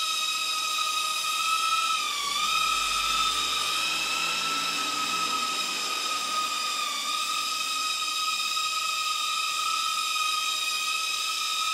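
Cheerson CX-10 nano quadcopter's four tiny coreless motors and propellers whining steadily in flight. The pitch dips briefly twice, about two seconds in and again about seven seconds in.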